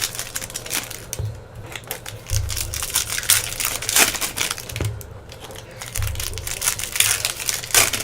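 Foil wrappers of baseball card packs crinkling and tearing as the packs are opened and the cards handled, in irregular crackles, with a couple of low bumps of handling.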